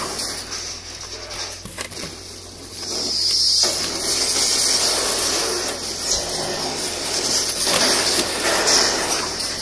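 Homemade cardboard-box seismograph being shaken by hand: cardboard and the paper strip inside rustle and rattle unevenly, swelling and easing. A steady low hum sits underneath.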